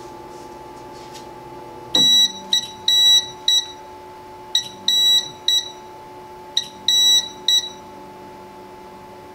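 QIDI X-MAX 3D printer's buzzer beeping in three quick bursts of short and long high beeps, about two seconds apart. A steady machine hum beneath winds down with a falling whine just as the first burst starts.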